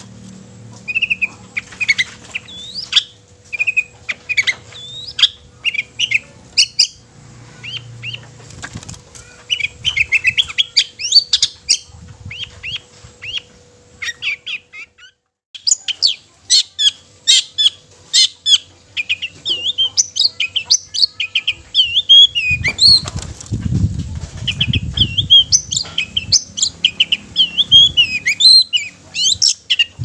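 Long-tailed shrike (cendet) singing in full song: a fast, varied stream of short whistles, chirps, trills and harsh chattering notes, broken off briefly about halfway through. A burst of low thumping comes about two-thirds of the way in.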